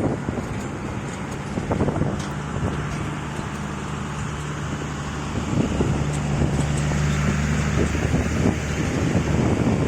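An engine running at a steady speed, with wind rushing on the microphone.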